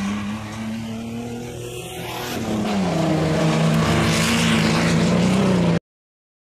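Engine of an off-road 4x4 race vehicle running hard under load. About halfway through it gets louder and its pitch drops, then holds steady. The sound cuts off abruptly near the end.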